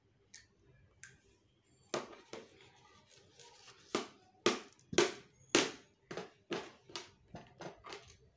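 Thin plastic bag crinkling and rustling as it is handled, in a run of sharp strokes about two a second that start about two seconds in.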